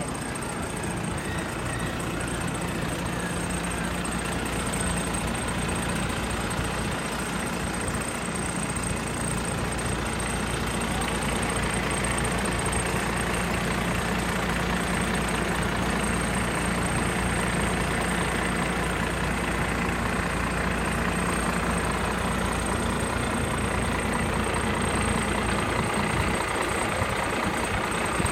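Case A7000 sugarcane harvester's diesel engine idling steadily while the machine stands parked, growing a little louder about ten seconds in.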